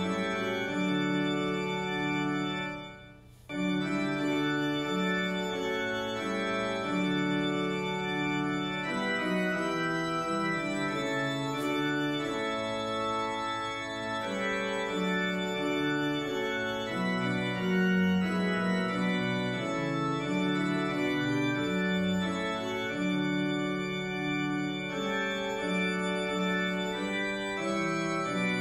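Organ playing slow, sustained chords, with a brief break about three seconds in.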